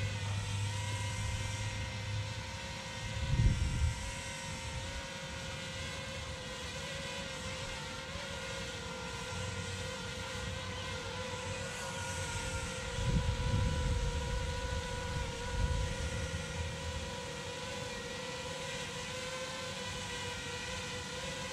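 Small quadcopter drone (Feima Robotics J.ME) flying, its propellers giving a steady, even-pitched hum while it circles in an automatic orbit. Two spells of low rumble break in, about three seconds in and again around thirteen to sixteen seconds.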